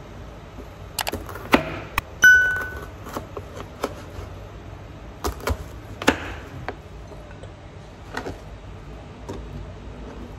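Kitchen knife cutting bitter melon on a plastic cutting board: scattered, irregular knocks of the blade against the board. About two seconds in, one louder knock is followed by a short ringing ping.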